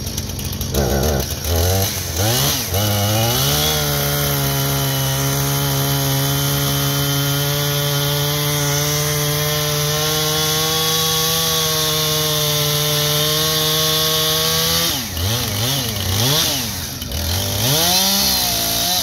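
Gas chainsaw revved a few times, then held at full throttle for about eleven seconds while cutting through a fallen log. Its pitch stays steady under load, then it drops back and is revved up and down again near the end.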